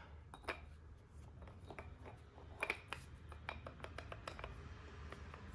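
Light metal clicks and taps of a car air-conditioning compressor's magnetic clutch parts being handled and fitted by hand, a dozen or so scattered ticks.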